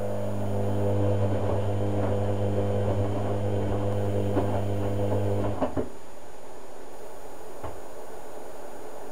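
Hotpoint Ultima WM72/76 washing machine's drum motor running with a steady low hum as the drum tumbles the wash. The hum cuts out suddenly with a couple of clicks about six seconds in, as the drum stops between turns. A single click follows near the end.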